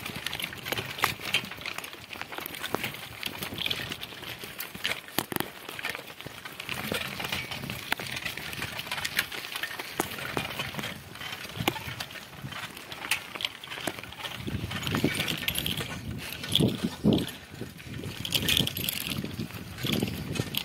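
A bicycle rattling and clicking as it rides over a rough, stony dirt track, its tyres crunching on the gravel. The clatter is uneven, with louder low rumbles in the last few seconds.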